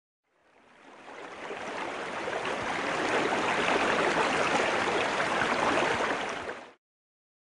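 Rushing stream water, fading in over the first couple of seconds, holding steady, then stopping about a second before the end.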